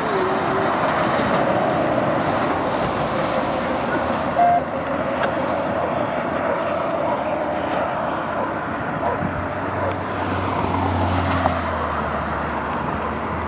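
Steady road and traffic noise of moving vehicles, with no siren, a brief short tone about four and a half seconds in and a low engine hum growing in for a few seconds near the end.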